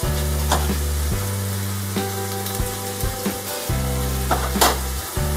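Chopped onion and crushed garlic sizzling in hot oil in a frying pan, with a few scrapes of a spoon stirring. Background music with sustained low notes plays over it.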